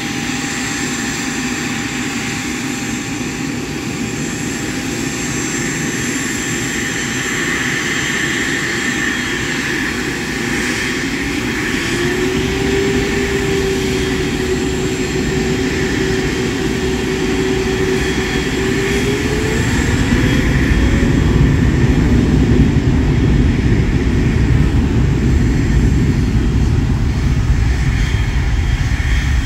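Jet aircraft engines running as planes taxi: a steady whine and rumble that grows louder over the span, with a whining tone that holds and then rises a little about two-thirds of the way through.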